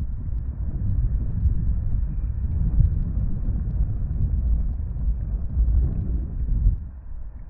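Wind buffeting the microphone: a loud, uneven low rumble that rises and falls and dips briefly near the end.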